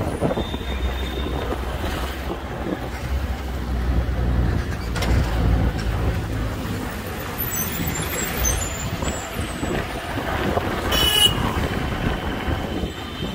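City street traffic heard from a moving two-wheeler: a steady engine and road rumble with passing vehicles. There is a brief high-pitched sound about 11 seconds in.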